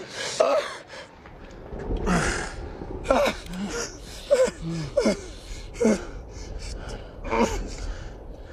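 A man gasping and groaning in short cries that fall in pitch, about one a second, between ragged breaths: the pained sounds of a man being beaten in a fistfight.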